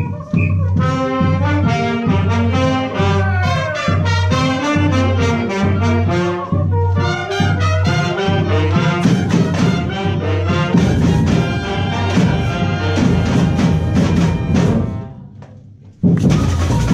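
Brass-led instrumental music with trumpet and trombone. It fades out about two seconds before the end. A new drum-heavy piece then starts suddenly.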